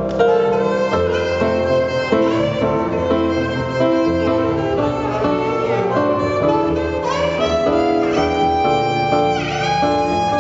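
Small live band playing: upright double bass plucked under electric piano, with saxophone and, at first, flute carrying the melody.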